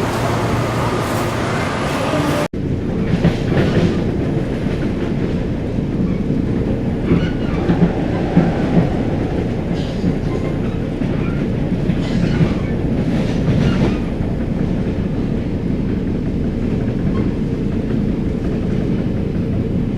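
Train running on the rails: a steady low rumble with clacking and knocks of the wheels over the track. A brief dropout about two and a half seconds in breaks the sound, and the rumble resumes right after.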